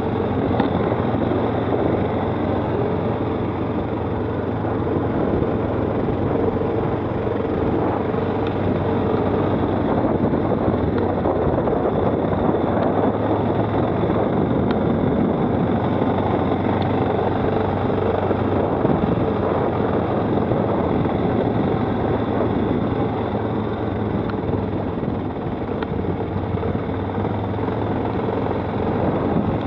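Stels 800 quad bike's engine running steadily while under way.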